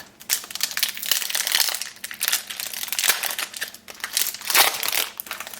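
A card booster pack's wrapper being crinkled and torn open by hand, in a series of crackling rustles.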